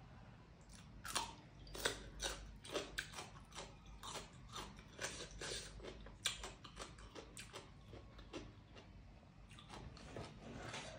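Close-up sound of a person chewing food with her mouth: irregular wet clicks and smacks, a few a second.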